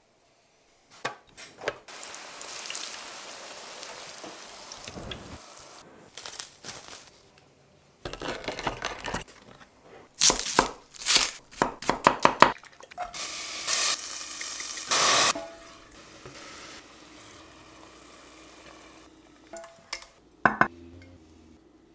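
A run of kitchen sounds. First a steady hiss of oil sizzling in a pan. Then, about ten seconds in, a cluster of loud, sharp metal clicks and scrapes as a tomato can's lid is pried up. Later a wooden spoon stirs tomato sauce in a steel pot, with a couple of sharp clicks near the end.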